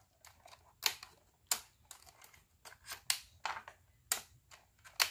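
Sharp plastic clicks at irregular intervals, about five loud ones, from a toy helicopter's spring missile launcher being worked again and again without firing. The missile is not seated properly.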